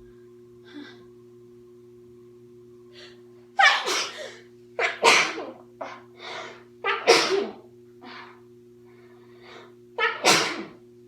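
A young woman sneezing repeatedly: about four loud sneezes, the first about three and a half seconds in, with short breaths between them.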